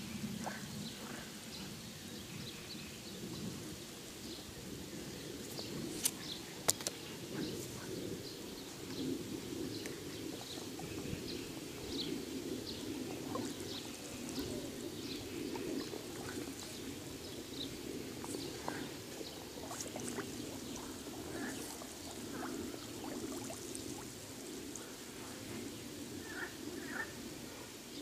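Frogs croaking in a steady, dense chorus, with birds chirping high over it and two sharp clicks about six seconds in.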